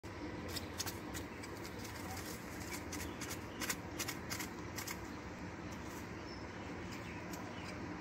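Quail pecking at seed and grit on the pen floor: a run of quick sharp taps and clicks over a steady low hum, thinning out after about five seconds.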